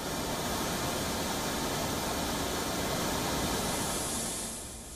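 Floodwater gushing and rushing over a subway platform, a steady hiss of fast-moving water. It turns quieter and duller about four and a half seconds in.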